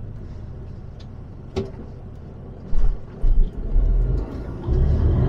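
Truck diesel engine and road noise heard from inside the cab, with a single short click about a second and a half in. In the second half the engine's low drone swells in uneven surges as the truck accelerates out of a roundabout.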